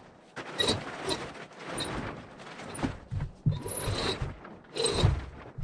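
A roll-up tarp door being hauled up by its rope: the tarp rustles and the rope gives short squeaks in a run of uneven pulls.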